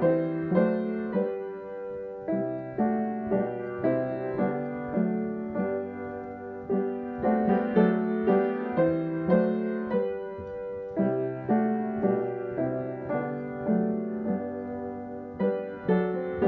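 Solo piano music at a slow pace, a note or chord struck about every half second and left to fade.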